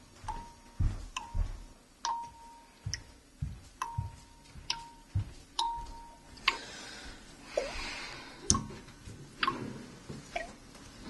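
Irregular sharp ticks, many trailing a brief ringing tone, over soft low thuds.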